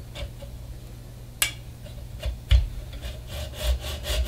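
Hand hacksaw with a fine 32-teeth-per-inch blade on a brass tube. A few sharp clicks as the blade is set in place, then about three seconds in it starts cutting the brass with short strokes in a steady rhythm.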